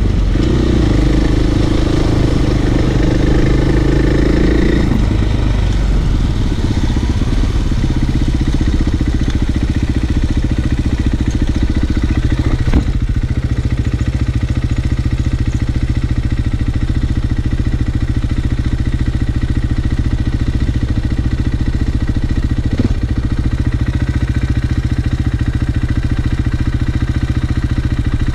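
Off-road motorcycle engine running while riding. Its pitch shifts over the first few seconds and then holds steady, with two sharp knocks, one about halfway through and one later on.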